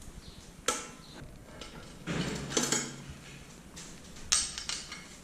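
Metal BMX parts clinking and knocking as they are handled and fitted. There is a sharp clink under a second in, a cluster of clinks with some ringing at about two to three seconds, and another clink a little after four seconds.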